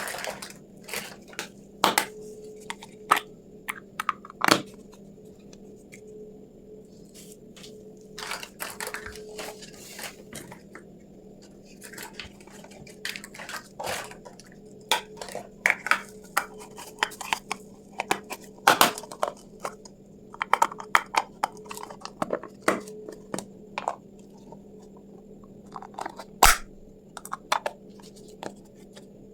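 Small toy kitchen pieces being handled: irregular clicks, taps and light rustling of packaging, with a faint steady hum underneath.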